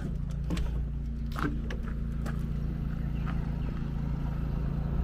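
Steady low machine hum from an RV air conditioner's outdoor unit and a generator running in the distance, with a few short knocks and steps over the first few seconds.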